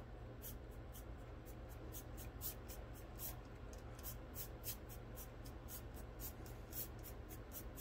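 Airbrush sputtering in short, quiet spits of air, about five a second. The air hose is pinched and slowly released, so the paint built up in the gun spatters out in droplets instead of an even spray.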